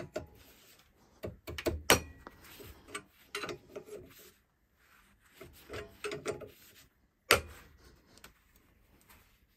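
Irregular metal clicks and clunks from a gear puller being worked with a bar on a Denso 7SB16C AC compressor's clutch pulley, with one sharp, loud metallic knock about seven seconds in.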